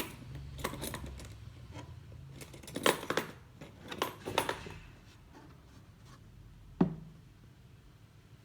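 Hard plastic and metal parts of a cordless angle grinder being handled: a few clinks and knocks about three seconds in, more around four seconds, and one sharp click about seven seconds in.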